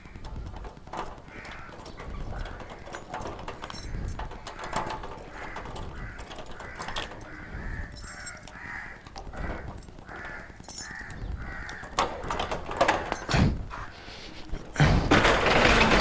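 Keys and a padlock clicking and jangling against a corrugated steel rolling shutter as it is unlocked, with a few louder knocks near the end. About fifteen seconds in the shutter is hauled up with a loud, continuous metal rattle. A bird calls repeatedly in the background.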